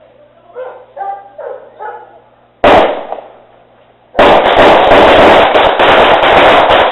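Car horn or siren unit playing a gunfire sound effect through a loudspeaker, very loud and distorted: a single shot about two and a half seconds in, then from about four seconds a continuous rapid burst like automatic fire.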